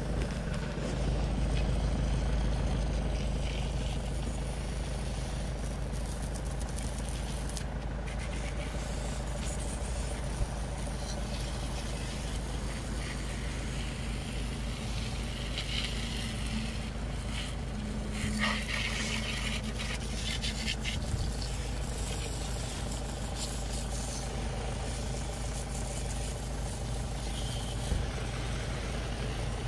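Garden hose spray gun jetting water onto a mountain bike, over a steady low rumble, with the spray's hiss rising in patches about halfway through.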